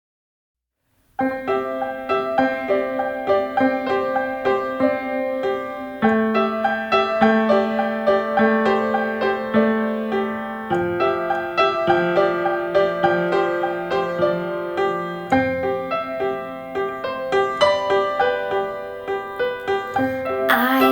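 Solo piano introduction of a gentle pop ballad, playing steady repeated notes and chords after about a second of silence. A voice begins singing right at the end.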